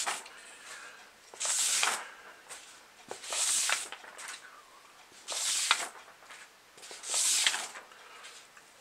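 Sheets of paper being handled and turned: short rustling swishes, each about half a second long and about two seconds apart.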